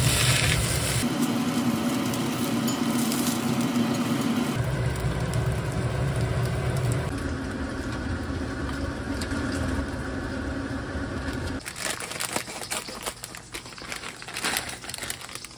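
Breaded pork cutlet and shrimp sizzling steadily as they fry in oil in a cast-iron skillet. Later comes the irregular crinkling and rustling of plastic packaging being handled.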